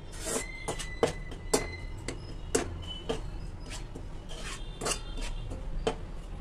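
Metal slotted spoon scraping and tapping against a kadhai as wheat flour is stirred and dry-roasted, with irregular scrapes and clicks about every half second.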